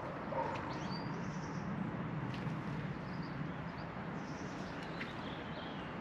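A few short, high bird chirps over a steady outdoor hiss and low rumble.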